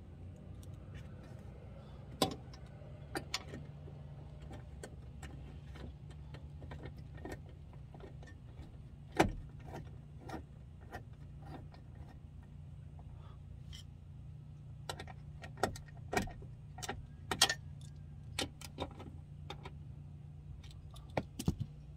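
Irregular clicks and knocks of hand tools and parts against a car door's metal inner panel, the loudest a sharp knock about nine seconds in. A steady low hum runs underneath.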